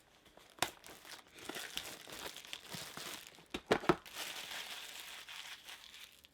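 Packaging being handled and torn open during an unboxing: a steady crinkling, with a few sharp clicks and snaps, the loudest a cluster about three and a half seconds in.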